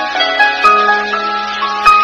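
Background music: a melody of short, sharply struck notes over a held low note.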